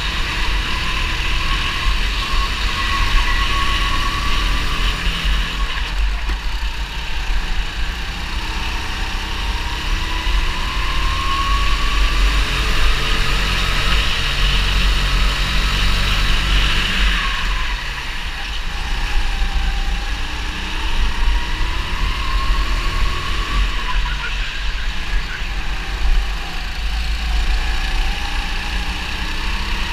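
Onboard sound of a 270 cc four-stroke single-cylinder rental go-kart engine under racing load. Its whine climbs as it revs out and drops back again and again, every several seconds, over a heavy low rumble.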